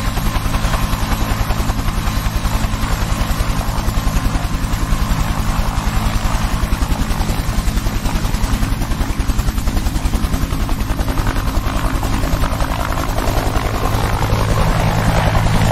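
Changhe Z-10 attack helicopter in flight: a rapid, steady rotor chop over a low drone, growing a little louder near the end.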